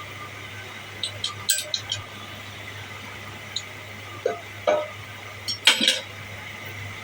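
A machine running with a steady low hum and a high whine, over which come sharp metallic clinks: a cluster about a second in and a louder one near six seconds.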